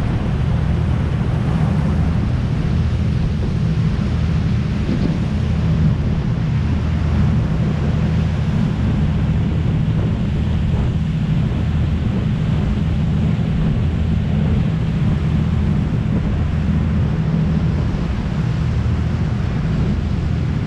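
Tour boat's engines running steadily at cruising speed, a low drone under the rush of the churning wake, with wind buffeting the microphone.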